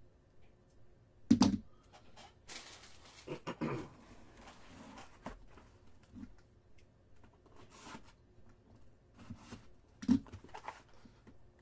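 Handling sounds of a foil trading-card pack being opened: the wrapper crinkling and tearing, then cards being shuffled and slid through the hands. A sharp knock comes about a second in and another near the end.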